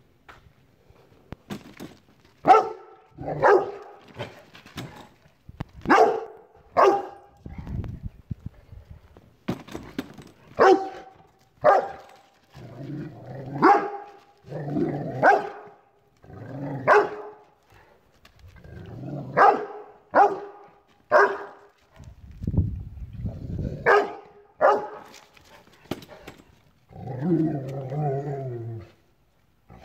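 Rottweiler barking repeatedly at a folding camp chair, sharp single and double barks a second or so apart, with a longer, lower grumble near the end.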